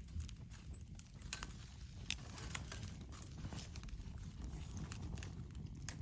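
Wood fire burning in a campfire stand, crackling with scattered sharp pops over a low rumble.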